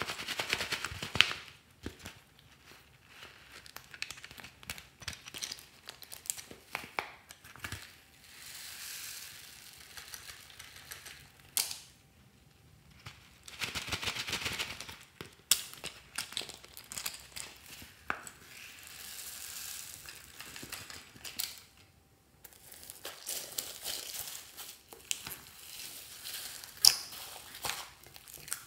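Soft plastic pouches crinkling and crackling as they are squeezed to empty foam beads into slime, with many sharp clicks in uneven clusters.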